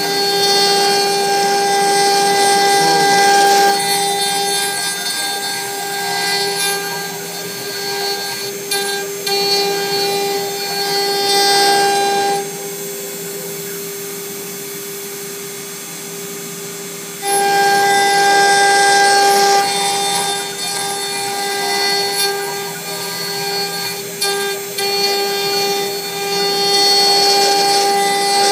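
CNC wood router spindle running with a steady whine while its bit carves a wooden blank held on the rotary axis. The cutting noise swells and fades as the bit moves and drops away for about five seconds in the middle, leaving only the spindle's hum.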